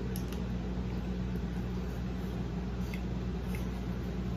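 A person chewing a mouthful of cheeseburger, heard as a few faint wet clicks, over a steady low background hum.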